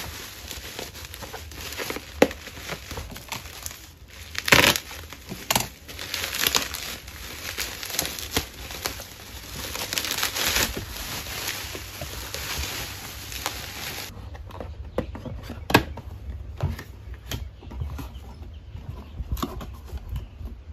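Plastic bubble wrap crinkling and crackling as it is pulled off a small cardboard box by hand. About two-thirds of the way through the crackling dies down, leaving scattered soft taps and scrapes of the cardboard box being handled and opened.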